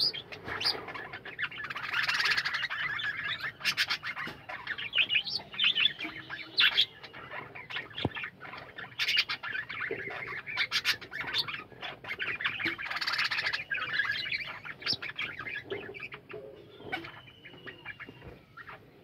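A colony of budgerigars chattering and warbling together: a dense, continuous jumble of chirps, squawks and clicks, thinning out near the end.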